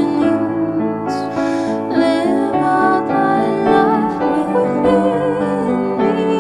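A hymn sung as a duet in harmony with piano accompaniment, the voices held in slow notes with vibrato.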